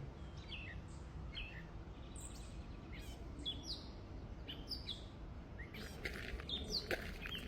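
Birds chirping: short, quick falling chirps, repeated, growing busier after about six seconds, over a steady low background rumble.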